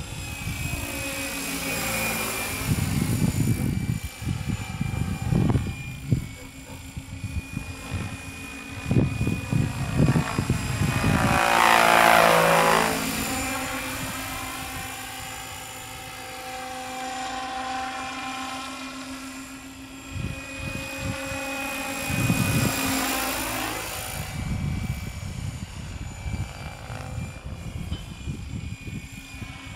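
Radio-controlled scale Bell 222 model helicopter on Hirobo Sceadu mechanics flying at high rotor speed. Its steady rotor and drive whine swells and fades as it passes, closest and loudest about twelve seconds in. Wind gusts buffet the microphone at times.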